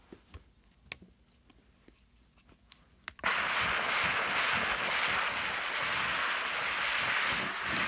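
Quiet handling with a few light clicks and taps, then about three seconds in the McCulloch MC1385 canister steam cleaner's nozzle bursts into a loud, steady steam hiss as the trigger is pressed.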